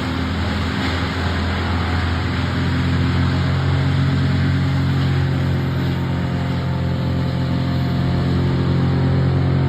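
A large engine running steadily at a constant speed, with a deep, even hum.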